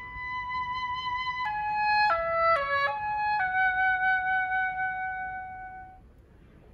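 Solo oboe playing a slow melody: a held note, a few shorter steps down and up, then a long held note that fades out about six seconds in.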